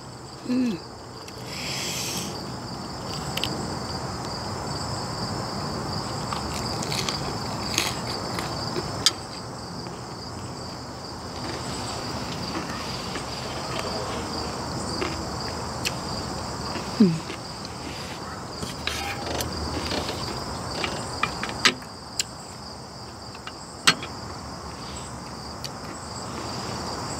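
A steady high-pitched chorus of insects, crickets among them, over a low even rush, with a few sharp clicks scattered through.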